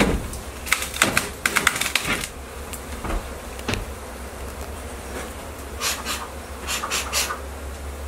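Honey bees buzzing and striking a beekeeping mask, making sharp ticks and taps that come in bursts about a second in and again around six to seven seconds. The bees are in defensive mode, flying into the intruder's mask.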